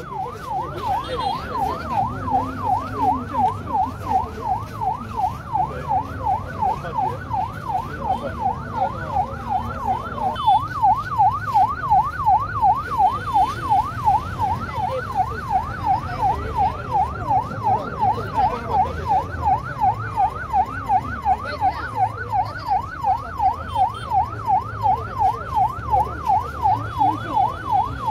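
Ambulance siren wailing in a fast yelp, its pitch sweeping up and down about two to three times a second without a break.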